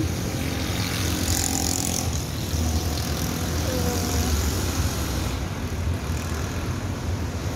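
Street traffic: a steady low rumble of cars driving past, with a brief hiss about a second and a half in.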